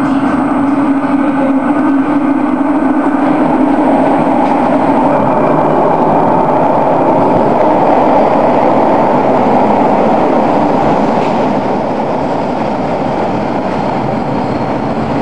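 Subway train arriving at an underground station platform: a loud, steady rail rumble that builds to its loudest about eight seconds in as the train comes in, then eases slightly as the cars roll past.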